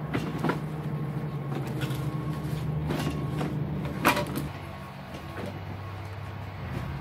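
Gloved hands rummaging through a bag of belongings: rustling with a few sharp clicks and knocks, the loudest about four seconds in, over a steady low hum.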